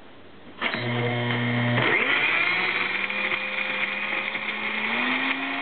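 3-horsepower OMNI 5 blender motor starting up about half a second in and blending quartered apples, carrot, goji berries and almonds in water. It starts at a lower speed, steps up in speed about a second later, and climbs a little higher near the end.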